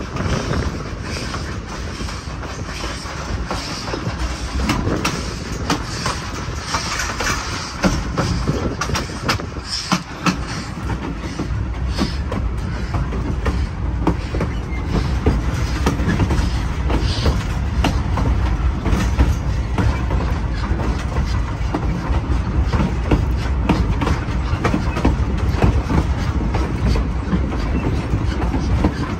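Narrow-gauge passenger car rolling downgrade around a curve: a steady rumble of wheels and running gear, with frequent clicks as the wheels pass over the rail joints, and wind noise.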